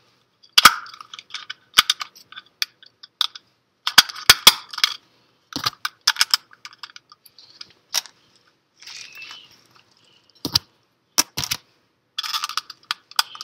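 LEGO plastic parts being pressed and clicked together by hand: irregular sharp plastic clicks, some in quick clusters of two or three, with faint handling rustle between them.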